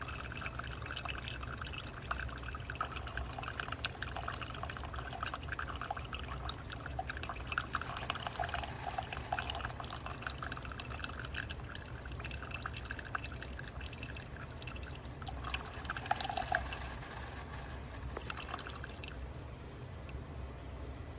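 Karosie single-serve coffee maker brewing, a stream of hot coffee pouring and trickling into a mug over a steady low hum.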